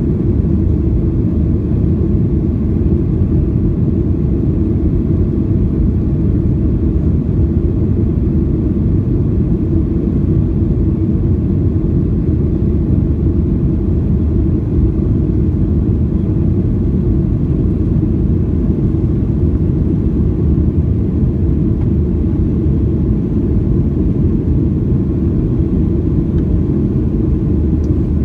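Steady low roar inside the cabin of a Boeing 737-800 climbing out after takeoff: its CFM56-7B jet engines and the rushing airflow, even throughout.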